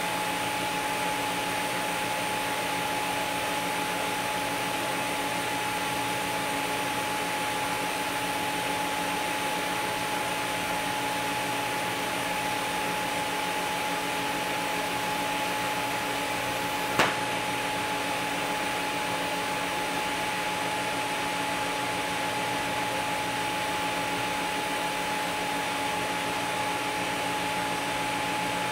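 Steady whirring hum with a constant whine, from the TIG welding machine's cooling fan running during the weld. A single sharp click sounds about seventeen seconds in.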